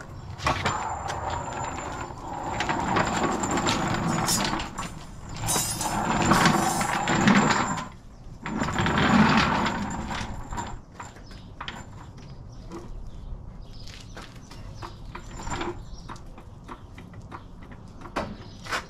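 A steel floor jack rolled across a concrete floor and set under the dune buggy's frame, giving about ten seconds of loud rolling and scraping, followed by quieter scattered clicks as it is positioned.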